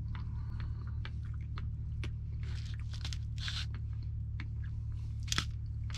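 A person chewing a french fry: soft wet clicks and a few brief crunchy bursts, over a steady low hum.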